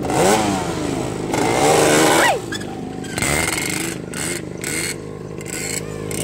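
Quad bike (ATV) engine running at idle and being revved up and down several times. The biggest rev comes about a second and a half in and falls away sharply.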